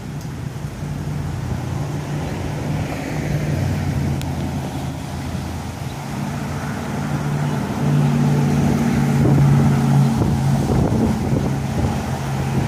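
Road traffic: motor vehicles running past on the street, a steady engine hum that grows louder for a few seconds past the middle as a vehicle comes close.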